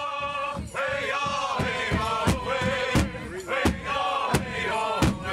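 Several voices chanting together in long, wavering held notes over a steady drum beat of about three strokes a second.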